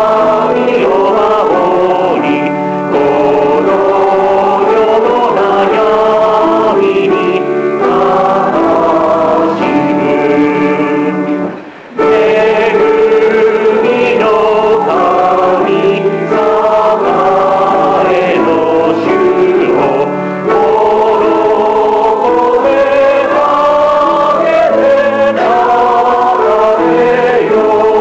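Church congregation singing a hymn in Japanese, with a short pause about twelve seconds in as one verse ends and the next begins.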